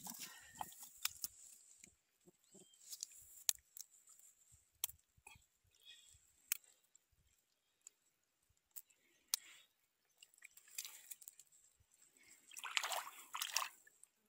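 Quiet, scattered clicks, scrapes and rustles of a nylon cast net being handled on wet sand as armored catfish are worked out of the mesh by hand. A louder rustling scrape comes about 12.5 seconds in.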